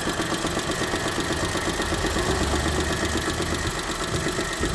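Daewoo Matiz 0.8-litre three-cylinder engine idling warm with a steady, rhythmic knock. The knock comes only once the engine has warmed up and is still there after a valve adjustment; the owner cannot tell whether it is a fault or the engine's normal running.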